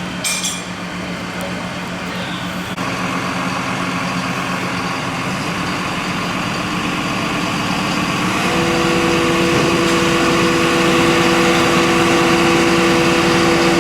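Heavy truck engine, most likely a fire engine's, running steadily; its pitch steps up twice and it grows louder.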